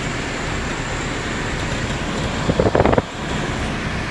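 Engine running steadily, with a short louder burst about two and a half seconds in that lasts about half a second.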